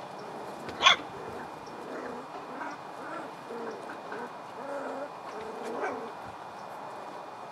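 Vizsla puppies at play, with one sharp, loud yip about a second in, then scattered short, low grunts and whimpers.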